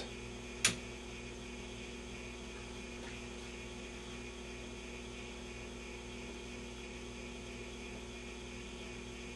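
A single click about a second in as the Admiral 16R11 tube television is switched on, then a steady mains hum. No sound comes from the set's speaker yet while its tubes warm up.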